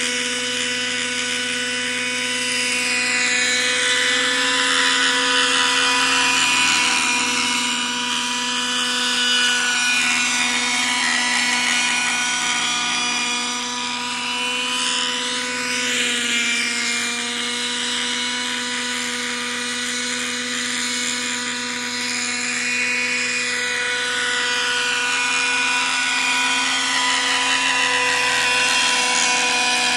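Thunder Tiger Raptor 50 RC helicopter in forward flight: its .50-size nitro glow engine and rotor running with a steady high-pitched whine, swelling and easing slightly as it moves about the sky.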